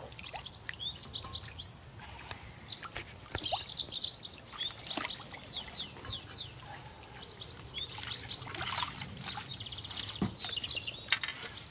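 Songbirds chirping and singing in quick short phrases, with a few light splashes and trickles of water as a hooked common carp is drawn into a landing net.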